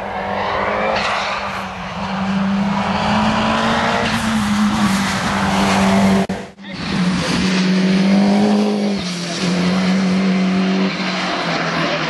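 Ford Escort RS Cosworth's turbocharged four-cylinder engine at full throttle, its pitch climbing again and again as it revs out through the gears. The sound cuts off abruptly for a moment about six and a half seconds in, then comes back.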